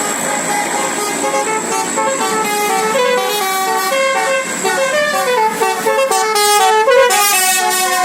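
Bus's basuri telolet musical horn playing a tune: a loud run of short horn notes stepping up and down in pitch, several sounding together like a chord, with a short hiss near the end.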